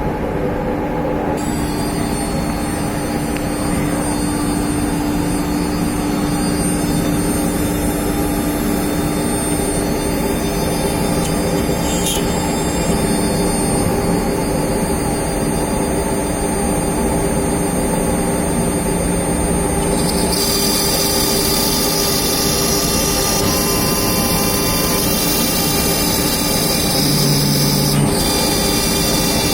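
CNC router spindle running steadily with a high whine, cutting MDF. About twenty seconds in the sound turns brighter and hissier.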